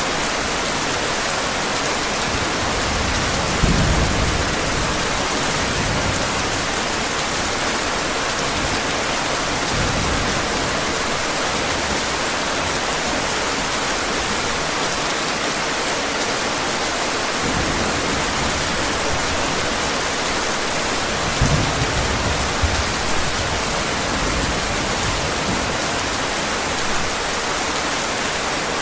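Heavy rain falling steadily, with low rolls of thunder: one near the start and another a little past the middle.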